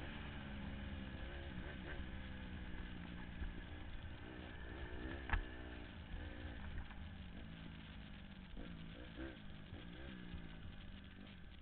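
Honda CRF150R dirt bike's single-cylinder four-stroke engine running under way, its pitch rising and falling several times with the throttle and gear changes. A single sharp knock sounds about five seconds in.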